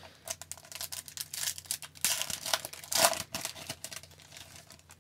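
Foil wrapper of an Upper Deck hockey card pack crinkling and tearing as it is ripped open, with the loudest tears about two and three seconds in.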